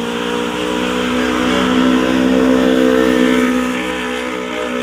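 A road vehicle's engine passing by: a steady engine hum that swells to its loudest around the middle and then fades.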